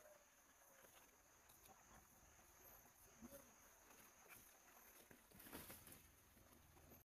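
Near silence: faint rustling and brushing of leaves and branches from someone climbing a tree, loudest about five and a half seconds in, over a faint steady high-pitched tone.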